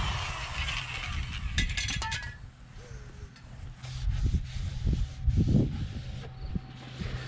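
A paper towel being rubbed around the oily, freshly honed cylinder bore of a Ford 4.0 V6 block, giving a few rough scuffs about four to five and a half seconds in. Under it runs a steady low rumble, with a few light clicks about two seconds in.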